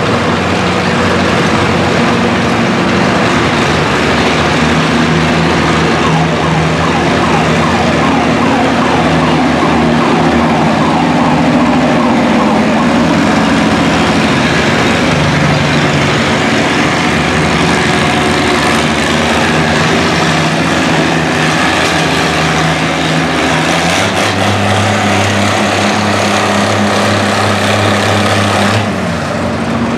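Oliver antique tractor's engine running loud and hard under full load while it drags a weight-transfer sled, its pitch shifting as the pull goes on and settling into a steadier low drone near the end before easing off just before the close.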